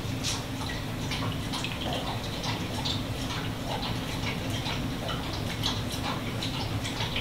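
A German Shepherd slurping water: soft, uneven wet clicks about two a second, over a steady low hum.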